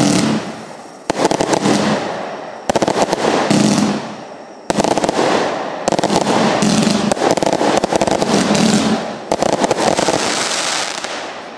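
Liuhua LHC694 180-shot compound firework cake firing: sudden volleys of shots every second or two, each followed by a dense rattle of small bursts that fades. The last volley dies away near the end.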